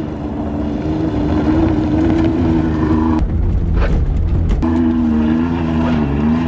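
Car engine running hard at high revs as the car is driven fast along a snowy dirt track, its pitch holding fairly steady. The engine note drops out for a moment a little after halfway, then comes back.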